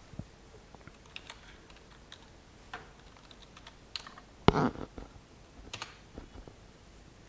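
Computer keyboard typing: a short run of scattered keystroke clicks, with one louder thump about four and a half seconds in, followed by a few more clicks.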